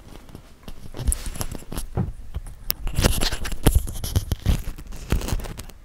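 Handling noise of a clip-on lavalier microphone being taken off: rustling and scraping of the mic against clothing, with many sharp clicks and knocks.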